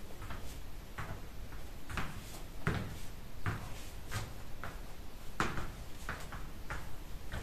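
Footsteps of wedge-heeled sandals on a laminate floor: a run of uneven clacks, one or two a second and sometimes in quick pairs.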